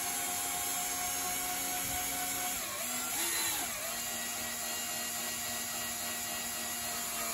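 Cordless drill-driver running steadily as it drives a dog-leg clamp screw to secure an in-wall subwoofer in plasterboard. Its whine sags briefly about three seconds in, then steadies again.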